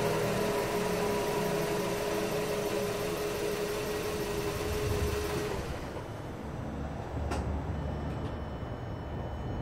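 Roaring drone with a steady whine from a Skoda 1.6 FSI's drivetrain as the car rolls with the engine at idle. It dies away about five and a half seconds in as the wheels stop turning. The owner is unsure whether a wheel bearing or the transmission is at fault. A single sharp click follows about two seconds later.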